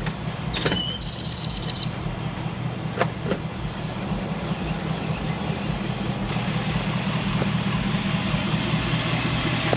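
Ford Super Duty pickup's engine idling with a steady low hum that grows a little louder as it is approached. A short high chirp comes about a second in, along with a few light clicks.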